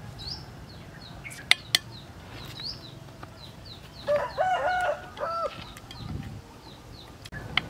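A rooster crows about four seconds in, a call of several arched syllables, over repeated short high chirps from small birds. Two sharp clicks sound about a second and a half in.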